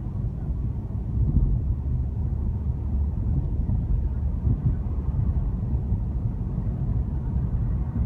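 A car driving along a road, heard from inside the cabin: a steady low rumble of tyres and engine.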